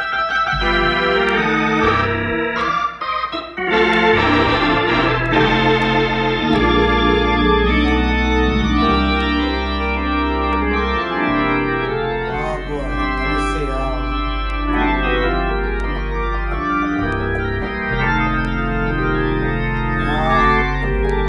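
Organ sound played on a keyboard: sustained chords changing every second or so over deep held bass notes, which drop out briefly a few times.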